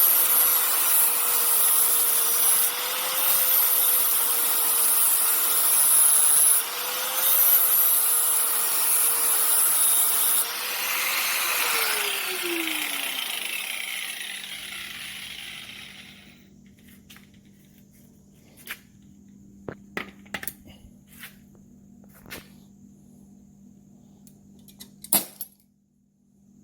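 Old Skil angle grinder with a 36-grit sanding disc grinding the edge of a lawnmower blade, a steady motor whine under the scratchy grinding. About ten seconds in the grinder is switched off and its whine falls in pitch as it winds down, leaving only a few light clicks.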